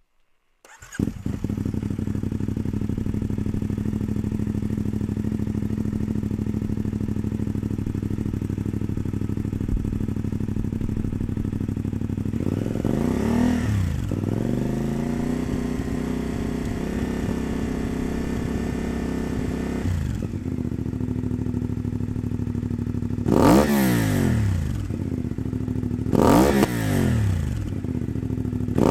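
CFMOTO 450MT parallel-twin engine running through a Sharon premium slip-on exhaust, fully warmed. It idles steadily, then the revs rise about halfway through and hold at around 4,000 rpm for about six seconds before dropping back to idle. Near the end come two quick throttle blips, each a fast rise and fall of the revs.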